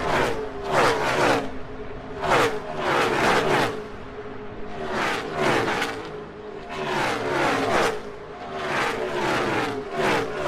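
NASCAR stock cars with V8 engines at full throttle flashing past one after another, about a dozen passes. Each car's engine note drops sharply in pitch as it goes by, some in tight packs and some on their own.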